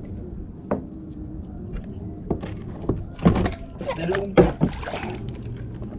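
A string of knocks and hollow thumps against a plastic sit-on-top kayak as a plastic-bottle float and its fishing line are handled, loudest about three seconds in and again just after four seconds.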